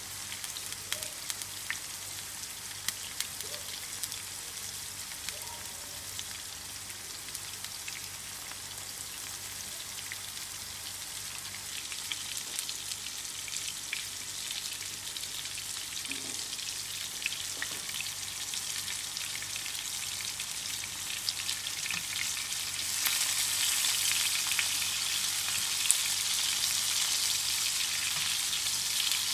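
Chapli kababs shallow-frying in hot oil, a steady crackling sizzle with scattered pops. The sizzle grows louder about three-quarters of the way in, as the patties are turned over with a slotted spatula.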